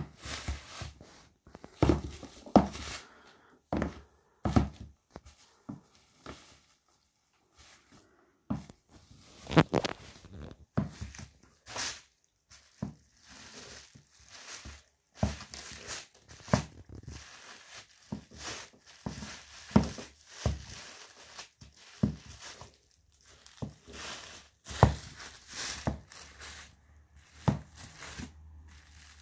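Stiletto heels stamping and grinding on cheeseburgers laid on a plastic sheet: irregular heel knocks and thuds about once a second, with the plastic crinkling and the buns and patties squashing underfoot.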